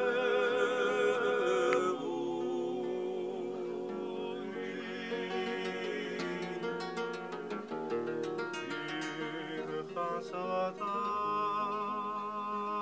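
A group of men singing together in harmony, holding long notes with vibrato, to a plucked acoustic guitar. The guitar's picked notes come through most clearly in the middle, between the sung phrases.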